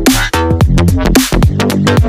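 Loud electronic background music in a dubstep style, with heavy bass that drops in pitch and sharp regular drum hits.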